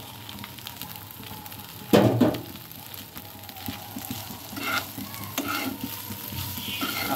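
Stir-frying in a hot frying pan: a steady sizzle, one loud burst about two seconds in as the boiled noodles go into the pan, then a metal spatula scraping and tossing the noodles with the prawns and vegetables in several short strokes.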